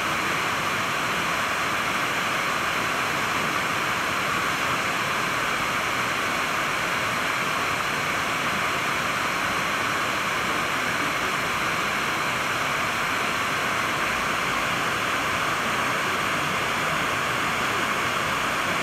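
FM static from a Clarion car stereo tuned to 91.70 MHz: a steady hiss with no programme audible, the sign of a distant Sporadic-E signal faded into the noise.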